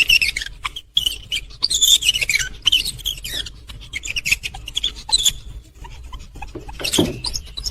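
Rapid high-pitched squeaks from a small animal, many of them sliding down in pitch, with a louder rustling burst about seven seconds in.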